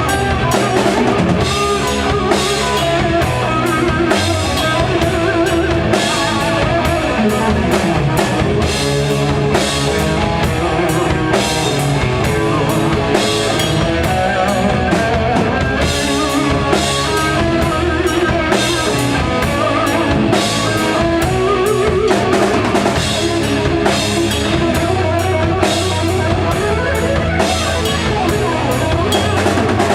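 Rock band playing live, with a steadily beaten drum kit and electric guitars.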